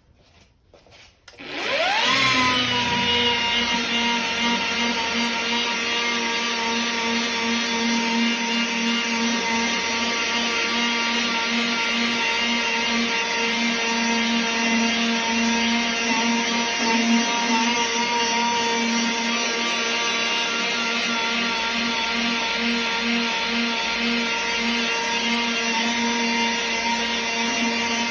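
Homemade cordless polisher, a cheap 18-volt tool converted to take a Makita battery, spins up about a second and a half in and then runs steadily at an even pitch, buffing clear-coated paint with a firm foam pad.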